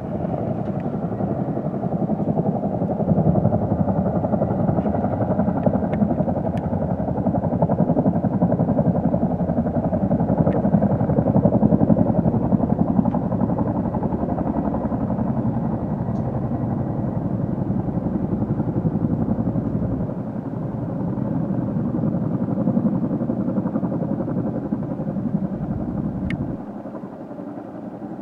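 Tandem-rotor Chinook-type helicopter flying past, the rapid steady beat of its two rotors mixed with turbine noise. It grows louder toward the middle, eases off, then drops abruptly near the end.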